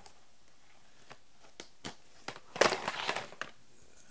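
Handling noise: a few light clicks, then about a second of loud crinkling, crackling rustle as the camera phone and plastic DVD cases are handled.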